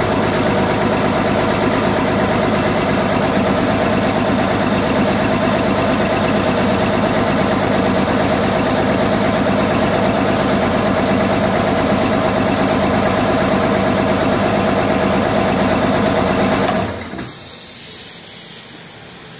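A 15 HP three-phase electric air compressor running with a loud, even drone, shutting off suddenly about 17 seconds in. A steady hiss of escaping air follows.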